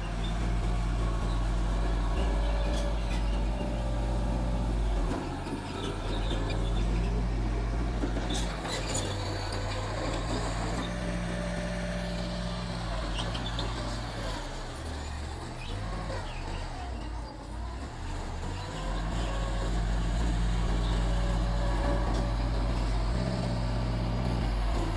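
Mitsubishi bulldozer's diesel engine running steadily, its note dropping and picking up again several times as the load changes. A few sharp metallic clicks come about eight or nine seconds in.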